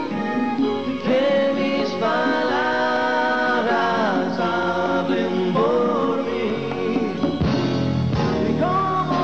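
Live band music: a man singing long, gliding notes in Spanish over strummed acoustic guitar and band accompaniment.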